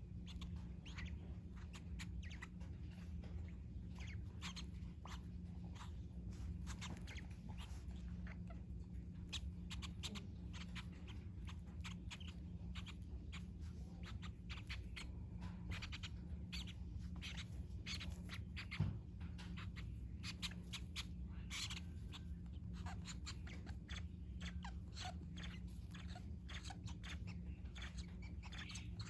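Young Fischer's lovebirds making many short, irregular chirps and clicks over a steady low hum.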